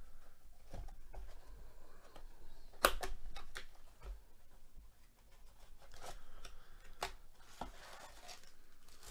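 Cardboard trading-card blaster box handled and torn open: a sharp snap about three seconds in as the flap is ripped, followed by scattered clicks of cardboard and a rustle as the foil card packs slide out near the end.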